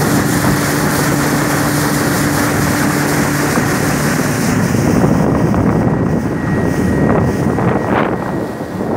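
Speedboat's outboard motor running at speed, a steady drone mixed with wind on the microphone and water rushing past the hull. The drone's even tone gives way to a rougher rushing noise about halfway through.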